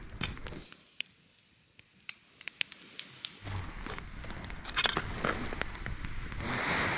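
Wood campfire on coals crackling, with scattered sharp pops and snaps, most of them between about two and five and a half seconds in. A low steady rumble comes in about three and a half seconds in.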